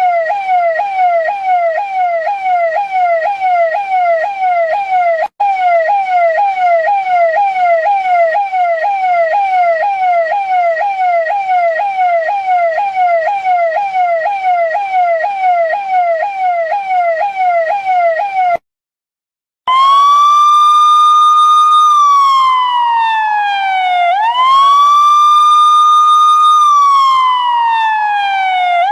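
Indian police car electronic siren on a fast yelp, a quick falling sweep repeating about two to three times a second. It cuts off about 19 seconds in, and after a short break it switches to a slow wail that rises, holds high, then glides down, twice.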